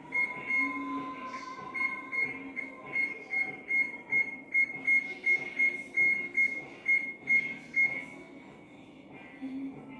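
Electric range's oven control panel beeping as its keypad is pressed: a run of short, high electronic beeps, about three a second, that stops about eight seconds in.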